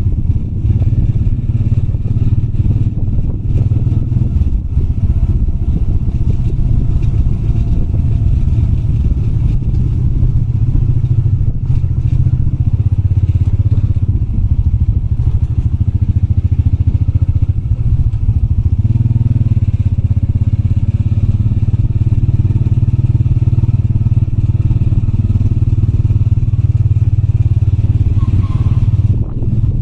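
Motorbike engine running steadily under way, with wind noise on the microphone, heard from the rider's seat.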